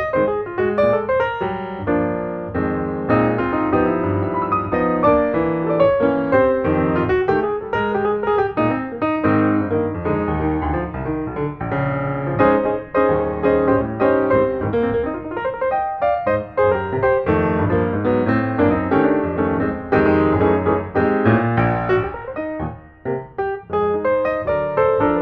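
Background piano music, with many notes in quick succession and no chainsaw heard.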